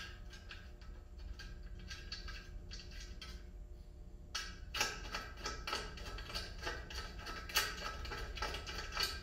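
Stainless steel screw being turned by hand with a screwdriver into the aluminum mailbox post through the mounting bracket: a run of small metallic clicks, sparse at first and coming quicker and louder from about halfway.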